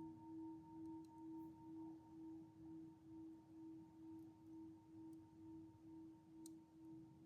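A singing bowl ringing faintly and slowly fading, its low tone pulsing in a steady wah-wah about one and a half times a second, with a fainter higher overtone above it.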